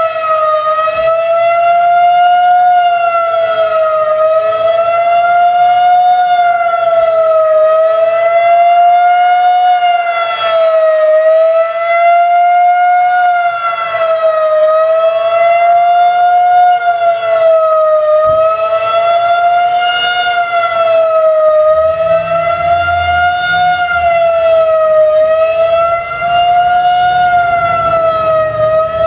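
Federal Signal 2001-130 outdoor warning siren sounding continuously, one wavering tone whose pitch rises and falls gently about every three and a half seconds.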